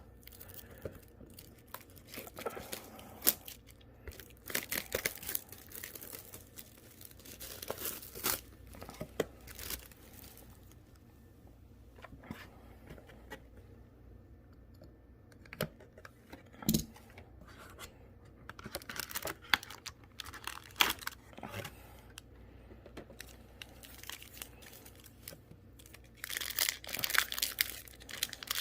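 Trading card packaging being handled: a foil booster pack wrapper torn open and crinkled, in scattered rustling bursts with small clicks, busier near the end.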